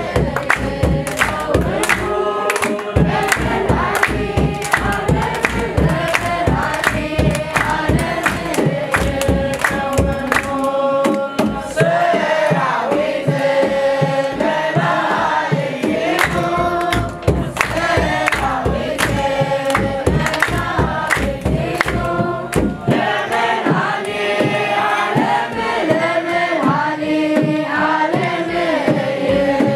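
Children's choir singing an Ethiopian Orthodox hymn, with hand clapping and a kebero drum beating a steady rhythm.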